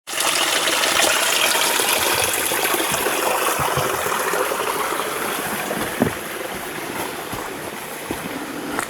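Small creek running over rocks, a steady rush of water that slowly grows quieter, with a few sharp knocks, the loudest about six seconds in.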